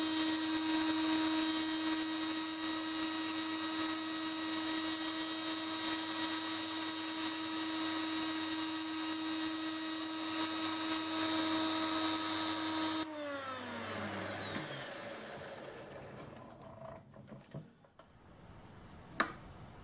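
A small lathe and a 400-watt HILDA tool post grinder with a carbide ball burr running together, enlarging the bore of a brass part: a steady high motor whine. About 13 seconds in the motors are switched off and the whine falls in pitch as they spin down, leaving a few light knocks near the end as a steel rod is tried in the freshly opened bore.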